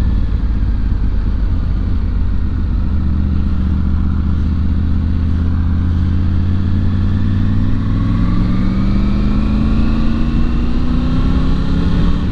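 Motorcycle engine and wind noise at freeway speed, heard from inside a full-face helmet with the visor shut. The engine note holds steady, then climbs gradually in pitch through the second half.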